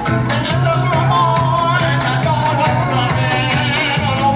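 Live reggae band playing: a man singing with vibrato over a steady bass line and drums, with a regular rhythm of cymbal strokes about three a second.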